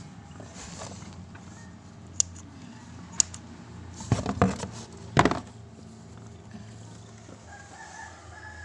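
A few sharp clicks, then a short burst of knocks and rustling from hands handling things close to the microphone, loudest about five seconds in. A rooster crows faintly in the background near the end.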